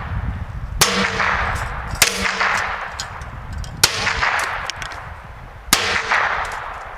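Four .22 rifle shots from a Ruger .22, spaced about one to two seconds apart. Each shot is a sharp crack followed by a short metallic ring as the bullets strike the cans and the steel stand they sit on.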